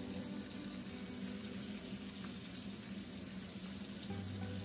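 Salmon fillets frying in oil in a nonstick pan: a steady sizzle.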